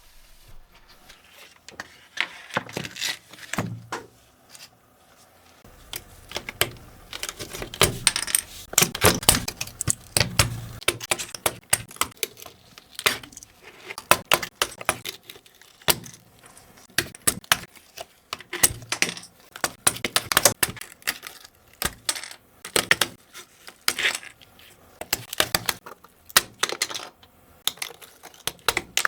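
Plastic keyboard keycaps and parts clicking and clattering as they are handled, in irregular clusters of sharp clicks with brief pauses.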